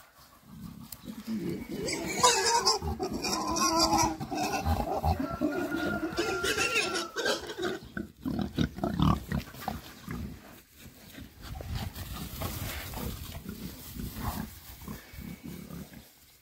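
Boars grunting and squealing, loudest in the first half, then lower, quieter grunting.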